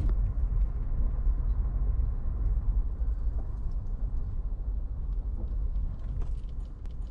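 Pickup truck driving on a gravel road, heard from inside the cab: a steady low rumble of tyres and road noise with faint scattered ticks.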